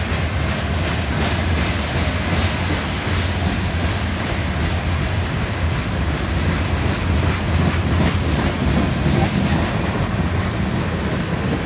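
Freight cars of a CSX manifest train, covered hoppers and tank cars, rolling past close by: a steady low rumble of steel wheels on rail, with faint clicks over the rail joints.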